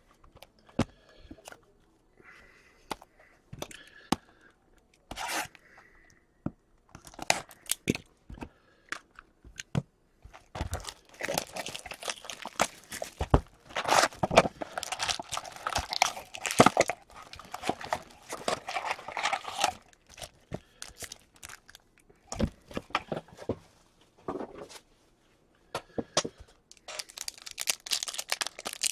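Plastic wrap and foil card-pack wrappers being torn open and crinkled, with scattered clicks from cardboard and cards being handled. The tearing is densest in a long stretch through the middle.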